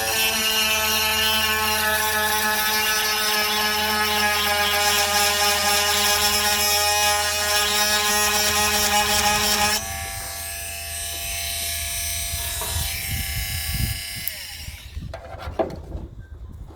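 Stihl electric chain grinder running noisy, its stone grinding a blunted semi-chisel chainsaw cutter with a steady whine and rasp. About ten seconds in the grinding stops and the motor runs on more quietly, then near the end it is switched off and spins down, followed by a few handling clicks.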